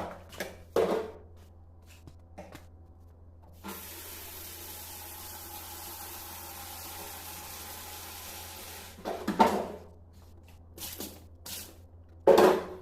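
Tap water running into a sink in a steady stream, starting about four seconds in and shutting off about five seconds later. Brief louder knocks or clatters follow, the loudest near the end, over a low steady hum.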